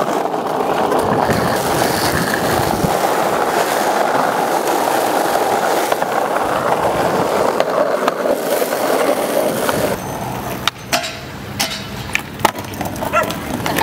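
Skateboard wheels rolling on asphalt, a steady rough rolling noise, for about the first ten seconds. Then the rolling quietens and a series of sharp clacks and knocks from the board follow.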